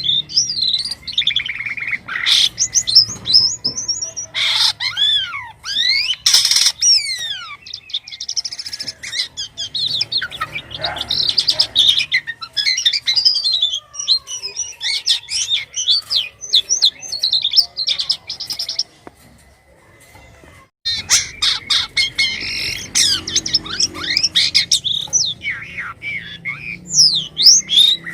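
Jalak kapas starling singing a long, varied run of rapid chirps, whistles, clicks and rising and falling glides. It breaks off for about two seconds some two-thirds of the way through, then starts again.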